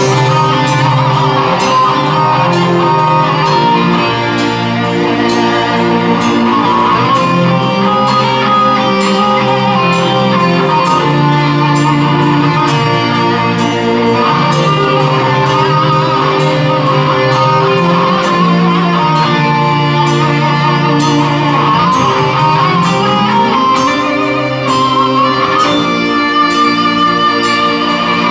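Live rock band playing an instrumental passage: electric guitars over bass and drums, loud and steady, with the bass climbing in pitch about three quarters of the way through.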